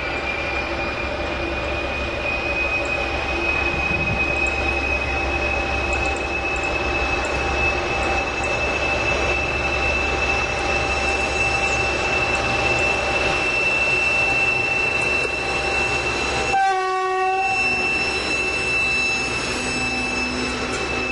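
BR232 diesel locomotive with a Kolomna V16 engine accelerating past under load, hauling a train of open coal wagons. Its engine runs with a high whine that slowly rises in pitch. A brief horn blast sounds as the locomotive passes, about three-quarters of the way in, and the wagons then roll by on the rails.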